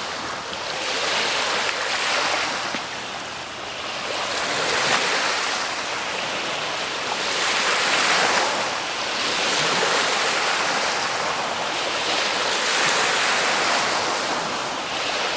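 Ocean waves breaking and washing in: a steady rushing surf that swells and eases every few seconds.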